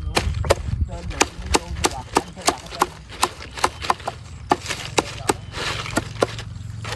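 Rapid, evenly spaced sharp strikes on wood, about three a second, from a tool working the hut's wooden frame or thatch.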